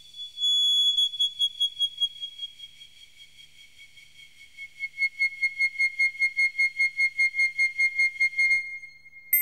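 High, thin synthesized electronic tone in an ambient soundtrack, gliding slowly down in pitch. About halfway through it begins pulsing rapidly, about five times a second, and it cuts off suddenly near the end.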